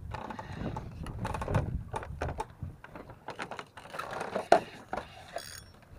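Irregular clicks and knocks with rustling between them, the sharpest knock about four and a half seconds in.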